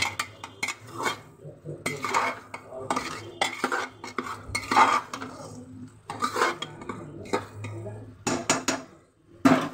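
Metal ladle stirring and scraping inside a pressure cooker pot, a scrape or clink about once a second, with a louder clank near the end.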